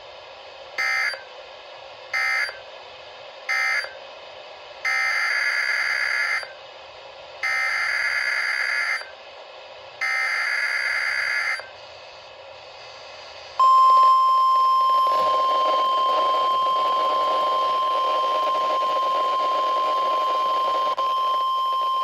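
NOAA Weather Radio data and alarm tones through a Midland weather alert radio's speaker. First come three short SAME data bursts, the end-of-message code closing one warning, then three longer SAME header bursts announcing the next warning. About two thirds of the way in, the steady 1050 Hz warning alarm tone starts and holds.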